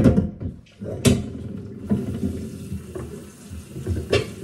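Cooked noodles being drained into a mesh colander in a kitchen sink, water pouring and running from the tap, with sharp clanks of the pot and colander at the start, about a second in and near the end.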